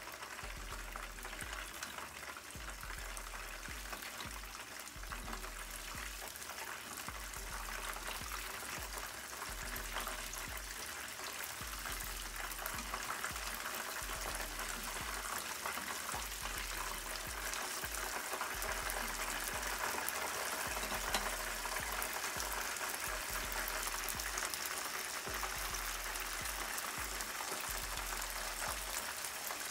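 Spring rolls deep-frying in hot oil in a frying pan: a steady crackling sizzle of bubbling oil, growing a little louder about halfway through.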